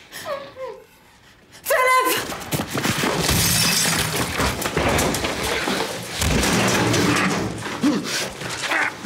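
A window being smashed in with a hammer: glass shattering and wood splintering under repeated blows, a continuous loud racket of breaking from about two seconds in. A short cry comes just as the smashing starts.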